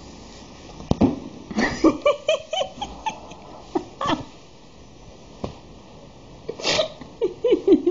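Kitten mewing in short calls, several in quick succession about two seconds in and again near the end, with single mews between. There is a knock about a second in.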